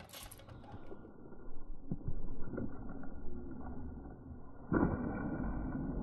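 A few light knocks and metal clatter from a broken washing machine's sheet-metal cabinet being handled, with a steady rushing noise setting in suddenly near the end.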